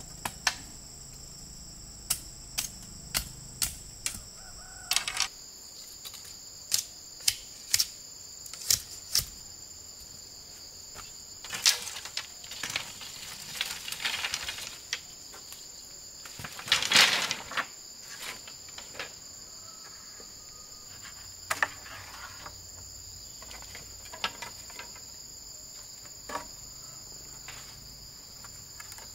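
A steady high-pitched drone of insects, with many sharp knocks and clicks scattered through it, a few every couple of seconds, the loudest cluster about two-thirds of the way in.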